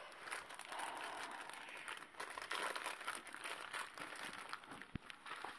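Paper napkins rustling and crinkling as they are handled and unfolded, with one short, dull low bump about five seconds in.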